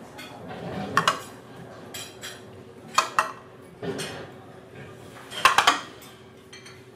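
Small glass shot glasses knocking down onto a table one after another: a sharp clink about a second in, two close together around three seconds, and a quick cluster of several near five and a half seconds.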